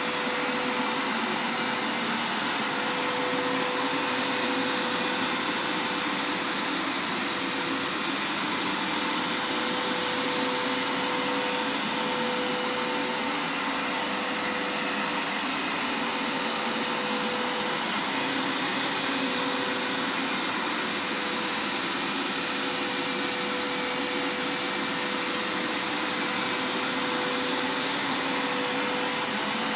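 Hoover Power Scrub Deluxe carpet washer running steadily, its suction motor giving an even rush of air with a steady whine, while it rinses the carpet with plain water.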